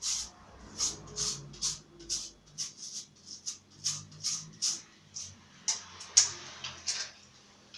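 Small washing brush scrubbing a fan's protective grille with detergent: a run of short, scratchy back-and-forth strokes, about two or three a second.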